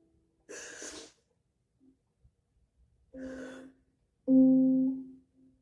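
A woman crying. A sharp gasping in-breath comes about half a second in and a sobbing breath around three seconds, then a loud, drawn-out voiced sob near the end. A faint ukulele note is still ringing at the very start.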